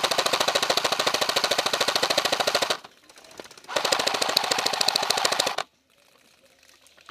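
Airsoft electric rifle firing on full auto in two long, rapid, even bursts, the second starting about a second after the first stops.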